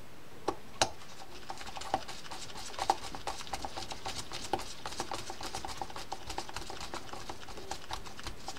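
Penn Sargus 64LP baitcasting reel's drag click mechanism ticking as it is worked by hand: a few separate clicks, then a quick, even run of small ticks from about three seconds in. The clicker is working after reassembly.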